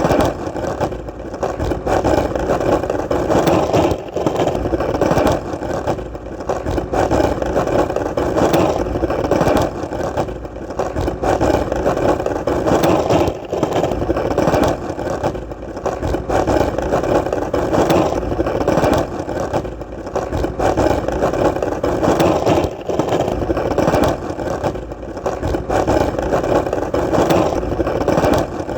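Skateboard wheels rolling on solid ground: a steady rumble, broken every couple of seconds by a brief dip and click.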